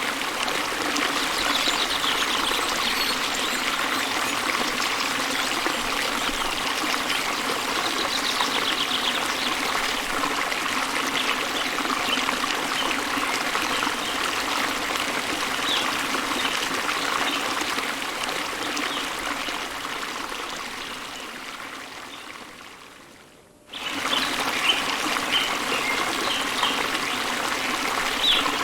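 Steady running water of a stream, with occasional faint high bird chirps over it. Late on, the sound fades down over a few seconds, then cuts back in abruptly.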